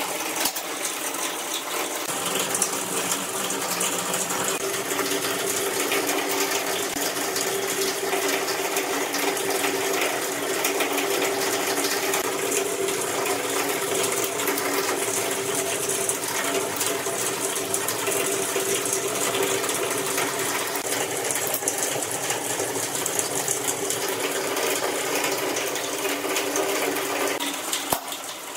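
A machine running steadily with a continuous hum tone, stopping shortly before the end.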